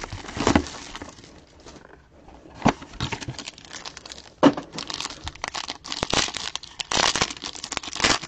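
Foil wrapper of a trading-card pack being torn open and crinkled by hand, dense crinkling over the last three seconds, after a few separate sharp snaps and rustles in the first half.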